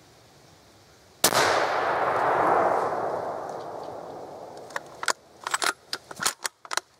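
A single gunshot in the woods, a sharp crack that rolls away in a long echo over about three seconds: the hunter's shot at a buck. A few seconds later comes a quick string of sharp clicks and snaps.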